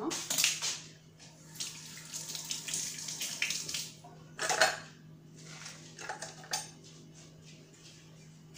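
Metal spoons and dishes clinking and clattering in several irregular bursts, the loudest about halfway through, while another spoon is fetched.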